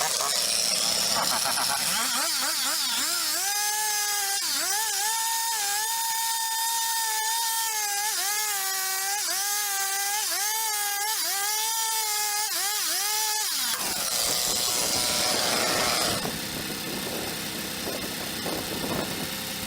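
Wood-Mizer band sawmill running through a walnut log: a strong, steady whine that dips briefly in pitch again and again, then cuts off suddenly about two-thirds of the way through, leaving a rougher, even machine noise.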